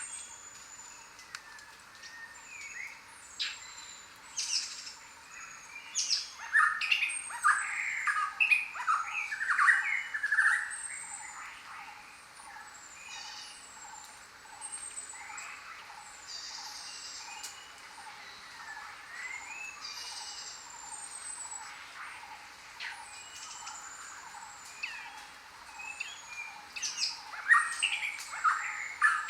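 A chorus of many birds calling at once in a jungle: short high whistles slurring downward repeat over a steady bed of chirps. A burst of louder, busier calls comes about a quarter of the way in and again near the end.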